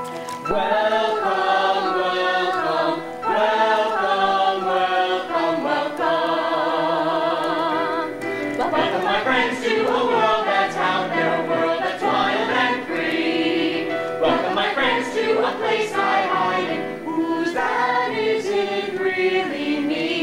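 Several voices of a stage cast singing together in harmony, choir-style, on long held notes with vibrato.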